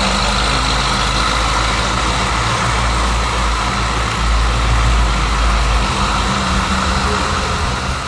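The 327 cubic-inch small-block V8 of a 1963 Chevrolet Bel Air running at low speed with a steady exhaust rumble. The low rumble swells through the middle, then eases off.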